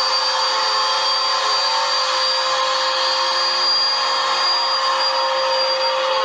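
Vacuum cleaner running steadily: an even rush of air with a constant high whine and a lower steady hum.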